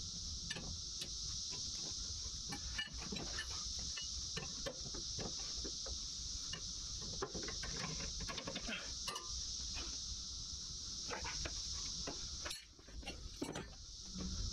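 Steady high-pitched drone of cicadas that stops near the end, with scattered light metallic clinks and knocks from hands and tools working on the mower deck.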